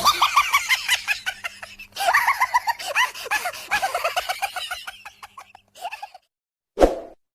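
Many birds calling in rapid, overlapping short calls that each fall in pitch, thinning out and stopping about six seconds in. A single short thump follows near the end.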